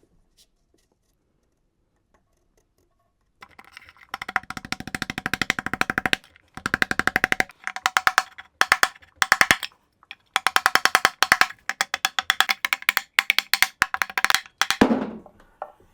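Rapid, repeated tapping on a 3D-printed seal installer, driving a PTFE crankshaft seal into the back plate of an Audi 4.2 FSI V8 until it sits flush. The sharp knocks come in quick bursts with brief pauses, starting a few seconds in.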